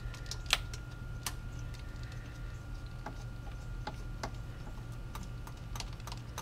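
Scattered light metallic clicks from a socket ratchet turning out the starter's lower 14 mm mounting bolt, which has already been broken loose. A steady low hum runs underneath.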